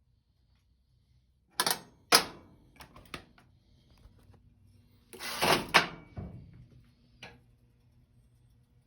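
Electric stove burner control knob and its switch being handled and turned: sharp clicks and clunks in two clusters, about a second and a half in and again about five seconds in, with one more click near the end.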